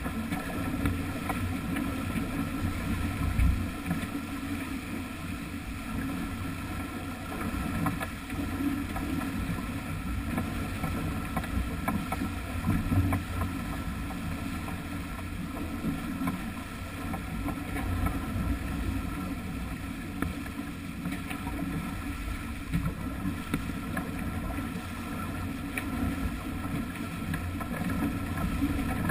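Sailing yacht under way, heeled in a fresh breeze: a steady rush of water along the hull and bow wave, mixed with wind buffeting the microphone as a low rumble.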